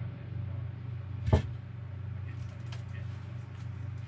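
A steady low hum, with a single sharp knock about a second in and a few faint clicks near the end.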